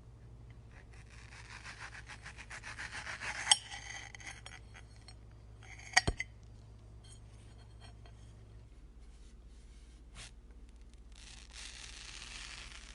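Fruit being cut and peeled with a knife: a fast rasping stroke builds for a couple of seconds. It is broken by two sharp clinks with a ringing tone, about 3.5 and 6 seconds in, then a few small ticks, and near the end a steadier rasping.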